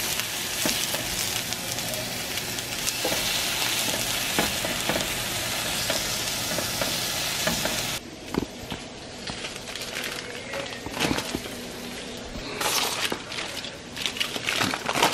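Bacon and sausages sizzling on a hot griddle pan, the fat popping now and then. About halfway through it cuts off suddenly to a quieter stretch of scattered crinkles and clicks as aluminium foil under raw biscuits is handled.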